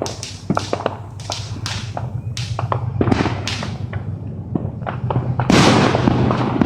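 Fireworks going off: a run of sharp pops and bangs, a few a second, with a louder rushing hiss about five and a half seconds in, over a steady low hum.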